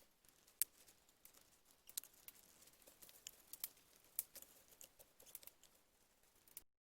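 Faint, irregular sharp clicks and ticks, the loudest about half a second in, stopping abruptly near the end.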